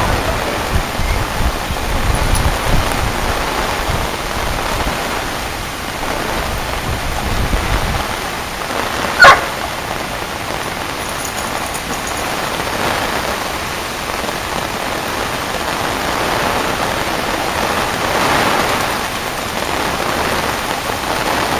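Steady heavy rain and moving floodwater, with dogs wading and splashing through the water; a single sharp dog bark about nine seconds in.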